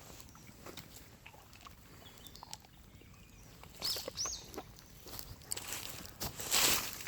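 Bonfire crackling with scattered sharp pops, a short bird chirp about four seconds in, and a louder rustle near the end.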